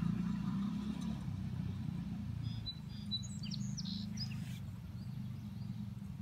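A small songbird chirping, a quick run of several high notes about three to four and a half seconds in, over a steady low rumble.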